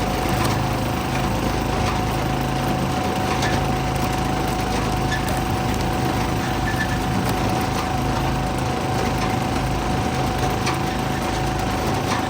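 Small gasoline engine running steadily at a constant speed, with a few faint knocks over it.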